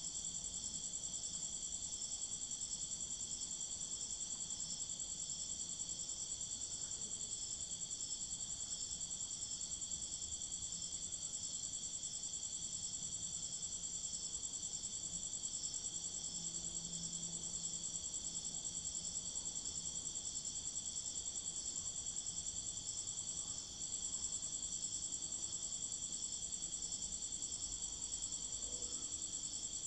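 Crickets chirring in a steady, unbroken high-pitched chorus.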